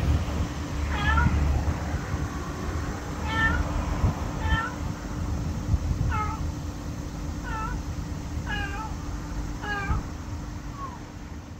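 Small black cat meowing repeatedly: about eight short meows a second or two apart, over a low traffic rumble.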